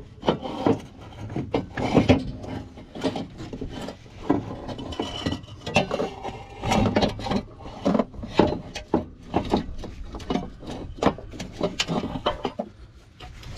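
Irregular metallic knocks, clunks and scraping as a catalytic converter is worked down through a cramped engine bay, its pipe and flange bumping against the heat shield and engine parts.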